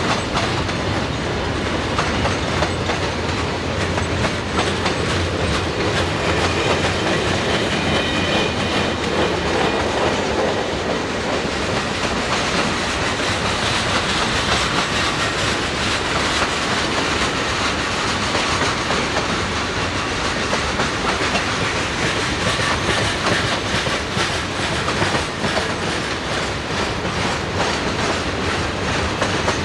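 Freight train cars rolling past at steady speed, their steel wheels clicking over the rail joints in a continuous clickety-clack over a steady rumble.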